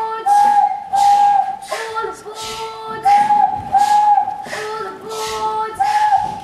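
A steam train imitated live: short breathy chuffs about one and a half times a second, alternating with held whistle-like chords that switch between two pitches.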